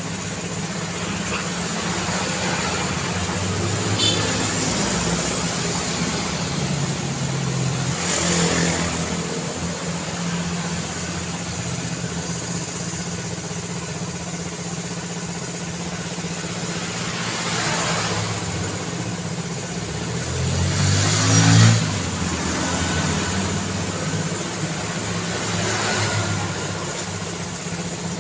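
City road traffic: a steady engine hum with cars passing one after another, each swelling and fading. One louder vehicle passes about two-thirds of the way through.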